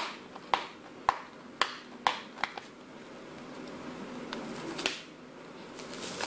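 Fingernails picking at the seal on a cardboard tablet box, making a string of short, sharp clicks about twice a second, then a pause and a few more clicks.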